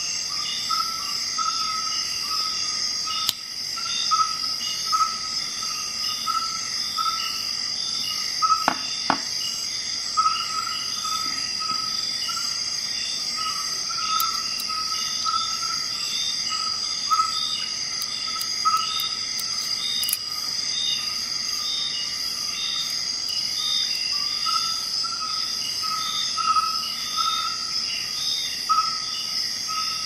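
Steady high-pitched insect trill with short chirps repeating throughout, as of crickets. A couple of sharp clicks come about nine seconds in.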